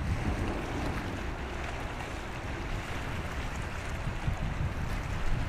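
Wind buffeting the microphone, an uneven low rumble, over a steady wash of open-water ambience.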